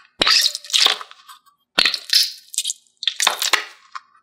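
Squeezing a mesh stress ball, giving three crackly bursts about a second apart.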